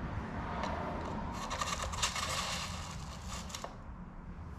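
Scraping and rubbing with a few small clicks, louder in the middle and then fading: a RockShox Reverb dropper post being slid into the bike's seat tube.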